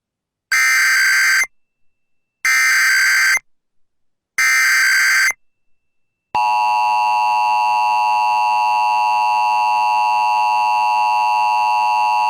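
Emergency Alert System SAME header: three data bursts of shrill warbling, each about a second long and about two seconds apart. About six seconds in, the steady EAS two-tone attention signal (853 and 960 Hz) begins.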